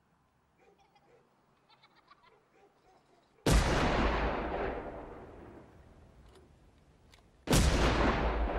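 Two loud sudden blasts about four seconds apart, each fading away slowly over a few seconds.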